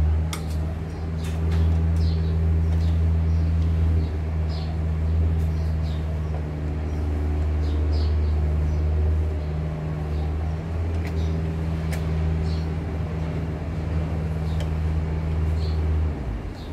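A small engine running steadily with a low hum that cuts off shortly before the end, with faint light clicks over it.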